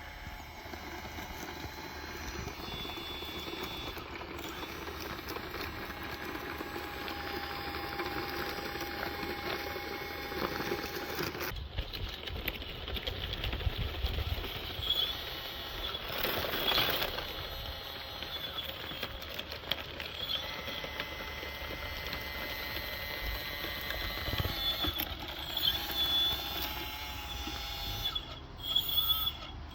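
Electric drive motors and gearboxes of scale RC construction machines whining as they run, the whine rising and falling in pitch with the throttle, over light mechanical clatter.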